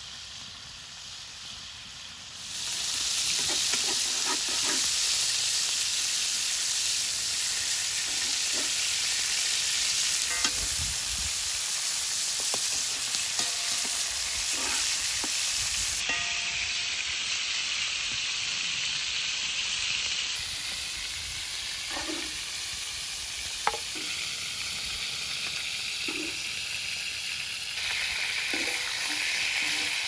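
Beef chunks frying in hot oil in a large metal pan, a steady loud sizzle that swells sharply about two and a half seconds in. A metal spatula stirring the meat gives scattered clicks and scrapes against the pan.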